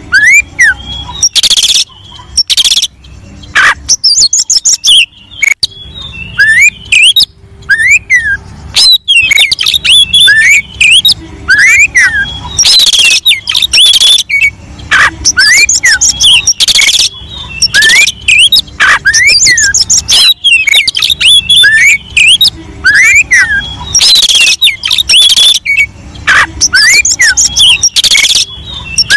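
Oriental magpie-robin singing a loud, continuous, varied song: quick whistled notes that rise and fall, broken every second or two by harsh, raspy calls.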